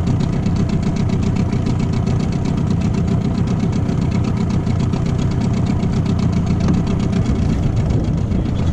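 Small boat's outboard motor running steadily at low trolling speed.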